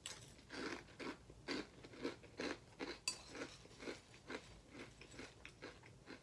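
A person chewing a mouthful of Apple Jacks cereal close to the microphone, crunching about twice a second. A sharp click sounds about three seconds in.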